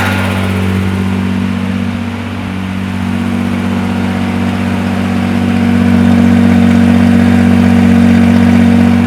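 BMW 7 Series straight-six engine running steadily just after being restarted on freshly cleaned fuel injectors with new connectors, getting louder about halfway through and holding there.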